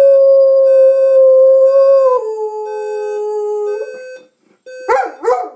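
A dog howling at a beeping alarm clock: one long, steady howl that drops to a lower pitch about two seconds in and stops just short of four seconds, then two short yelping calls near the end. The alarm clock's repeated beeps sound faintly underneath.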